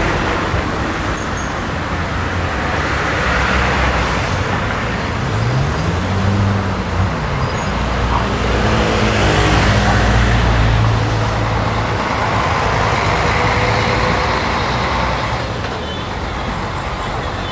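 City street traffic: motor vehicles passing close by with a steady rumble, and one engine's pitch rising and falling about six seconds in.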